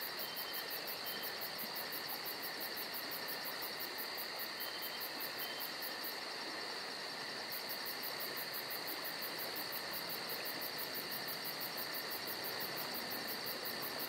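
Steady insect chorus with a fast, evenly pulsing high trill over a constant shrill hum, and a few faint short chirps early on and again near the middle.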